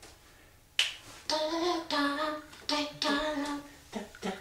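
African grey parrot vocalising in a sing-song run of several held, pitched notes, like humming or singing without words. A single sharp click comes just before the notes start.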